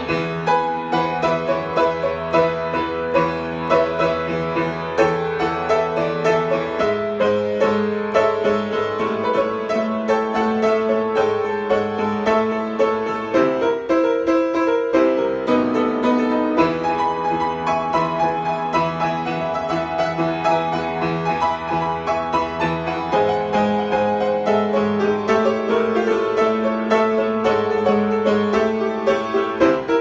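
Grand piano played solo in an instrumental rock passage: rhythmic, evenly pulsed chords over low bass notes that change every several seconds, thinning briefly about halfway through.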